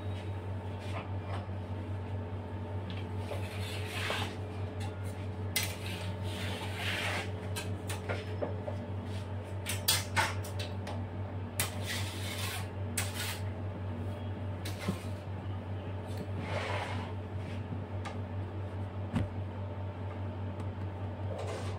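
Scattered scraping strokes and a few light clicks as a cake scraper and palette knife work cream on a cake spinning on a turntable, over a steady low hum.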